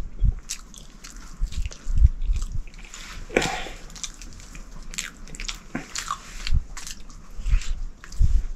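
Someone eating close to the microphone: biting and chewing food, with scattered sharp clicks and low thumps, and a short louder rush of noise about three and a half seconds in.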